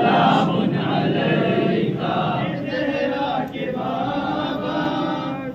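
A crowd of men chanting together, many voices at once.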